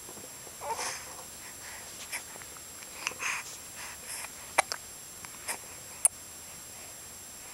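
A young baby, almost three months old, hiccupping: short, sudden hics about every second, with soft breathy sniffs between.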